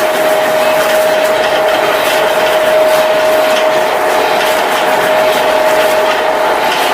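Factory machinery running steadily: a constant whine over a clattering, rattling noise.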